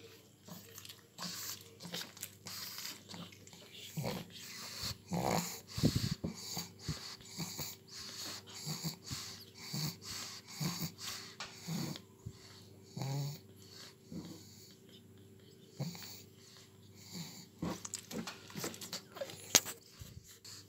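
Ten-day-old pug puppies suckling at their mother: many quick smacking clicks, with a few short squeaks and grunts.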